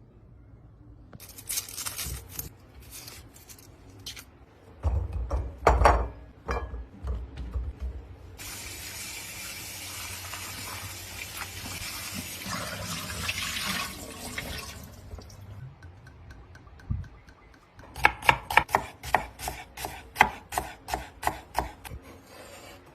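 Kitchen clatter with a few heavy knocks, then a tap running steadily for about six seconds. Near the end, a knife chops on a cutting board in quick, even strokes.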